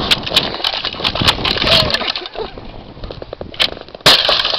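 Boots kicking and stomping an old Gateway CRT monitor's plastic casing: a run of sharp cracks and knocks, then a loud hit about four seconds in.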